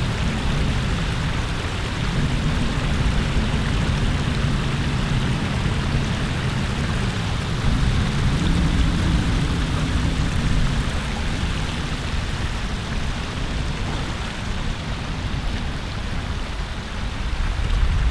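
Steady rushing of water from a river cascade: an even, unbroken noise with a strong low rumble.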